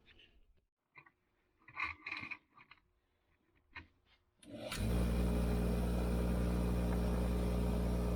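A few light handling clinks and rubs, then about four and a half seconds in an electric wire-wheel motor switches on and runs at a steady hum.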